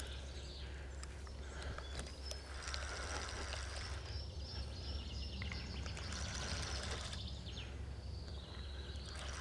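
Outdoor ambience at a lakeside: birds chirping and singing over a steady low hum.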